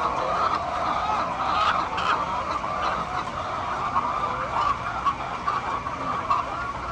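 A flock of hens clucking and chattering together, many overlapping calls at a steady level with no single bird standing out.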